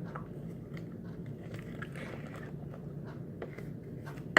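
Fluffy slime of glue and shaving cream being stirred in a bowl with Tide laundry detergent as activator, giving faint sticky, crackling squelches, with one sharp click near the end.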